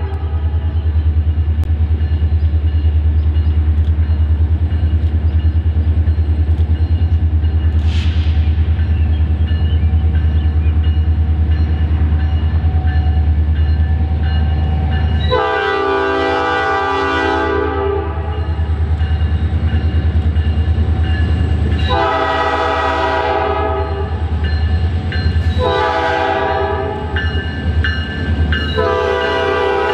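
Diesel locomotive working with a deep, steady engine throb, its multi-note air horn blowing the grade-crossing signal: two long blasts, a short one, then a long one starting near the end.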